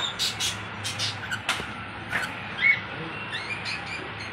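Cockatiels chirping and calling in short, high chirps and a few sharp calls, the loudest about two and a half seconds in, over a faint low steady hum.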